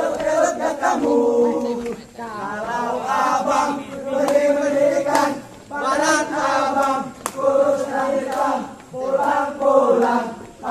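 A group of men singing and chanting a scout cheer (yel-yel) together, in short phrases with brief breaks between them.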